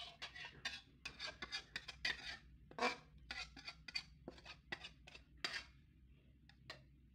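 Metal spatula scraping and knocking against the inside of a metal wok in a quick run of short strokes, scooping thick sambal out into a bowl. The strokes thin out to a couple of scrapes near the end.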